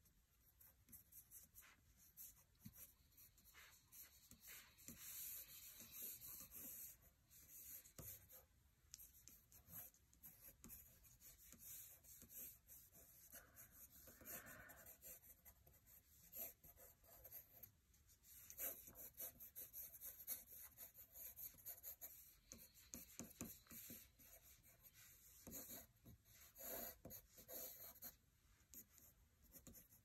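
Faint pencil scratching on paper in many quick, short sketching strokes.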